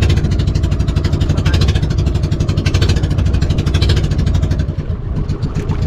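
Motorboat engine running steadily with a fast, even firing beat, easing off near the end.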